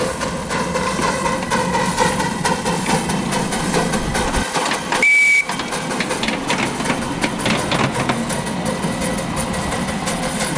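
Live-steam 7.25-inch gauge model of a Darjeeling Himalayan Railway B-class 0-4-0 locomotive running along the track with passengers, a steady run of clicks and clatter. About five seconds in, a short high whistle blast, held briefly at one pitch, is the loudest sound.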